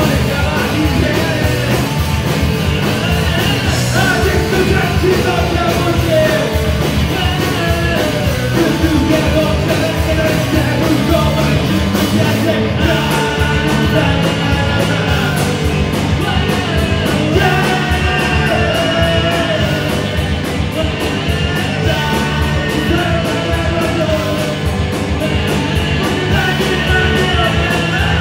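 Live rock band playing loud: electric guitars, bass and drums keeping a steady beat, with a singer's voice over them.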